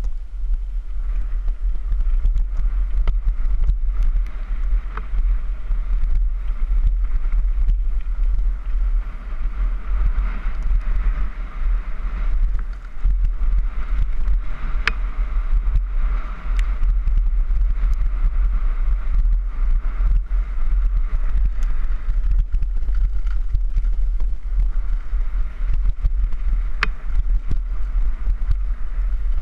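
Wind buffeting a helmet-mounted camera's microphone as a downhill mountain bike descends a rough dirt trail, a steady low rumble with scattered rattles and knocks from the bike and camera over the bumps, a couple of sharper clicks among them.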